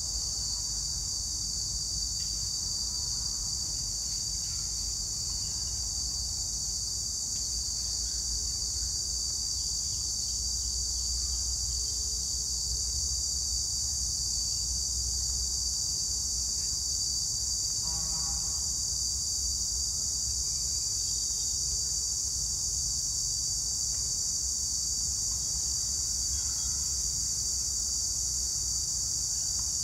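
A steady, high-pitched drone of insects shrilling in the park trees, unbroken throughout, over a low rumble.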